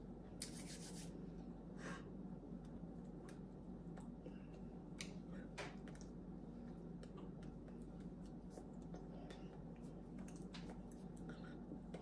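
Faint rubbing, brushing and small taps of hands and sleeves moving during sign language, over a steady low electrical hum. A short brushing sound about half a second in is the loudest moment.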